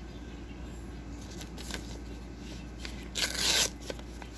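Paper rustling as a greeting card is handled, with a few light ticks and one short, louder rustle about three seconds in.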